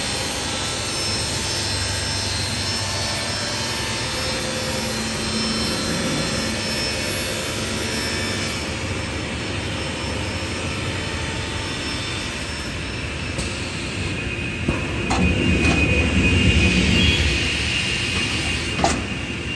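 Panel saw running with a steady roar. It grows louder for a few seconds near the end, with a rising whine, as the blade cuts, and there are a couple of sharp clicks.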